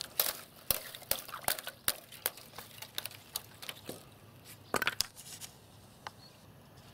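Thin ice on a basin of water cracking and clinking as it is broken: a quick run of sharp cracks that thins out, with a last few near the end.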